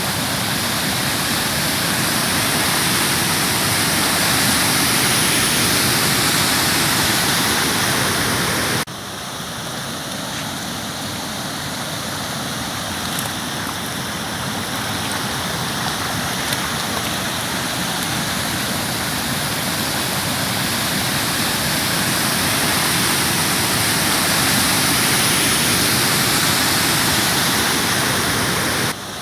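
Heavy rain pouring down with running floodwater, a loud steady hiss. It drops suddenly about nine seconds in, then slowly builds back up.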